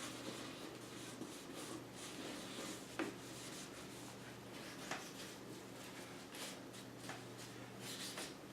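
Faint rubbing of a hand wiping and polishing a hard ABS plastic clock case, with a few light clicks as the clock is handled; the sharpest click comes about three seconds in and another near five seconds.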